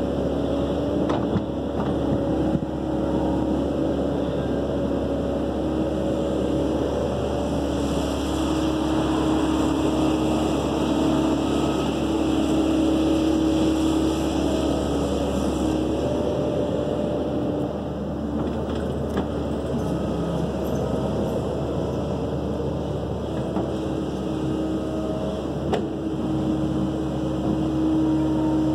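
Kobelco SK135SR excavator's diesel engine running steadily under load while the machine digs and swings, with tones that step up and down in pitch as the hydraulics are worked. A few short clanks stand out, about a second in and twice near the end.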